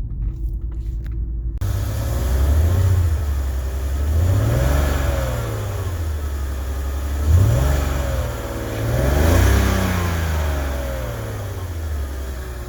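BMW 330ci's inline-six engine with a rough idle, revved up and let fall back three times: a slow rise about four seconds in, a quick sharp blip around seven seconds, and another rise around nine seconds, then settling back to idle.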